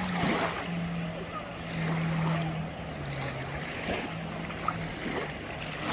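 Motorboat engine droning steadily, its pitch stepping down a few times as it eases off, with wind noise on the microphone.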